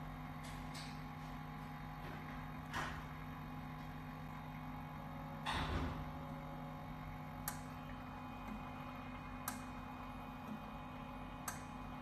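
Continuous inkjet printer running its shutdown sequence: a steady machine hum with scattered sharp clicks, and one louder rush about halfway through.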